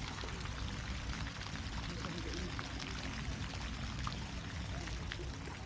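Water splashing steadily from a fountain's jets into its pool, an even rushing hiss with a low rumble underneath.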